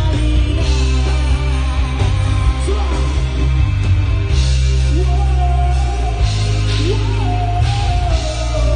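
Live rock band playing with electric guitar, bass, keyboard and drums, with a vocalist singing over it. The low end is heavy, and cymbal crashes come several times in the second half.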